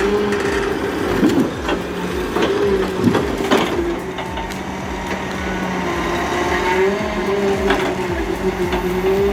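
Log-loading machine's engine and hydraulics running with a steady, slightly wavering whine, while logs being handled give several sharp cracks and knocks; the loudest comes about three and a half seconds in.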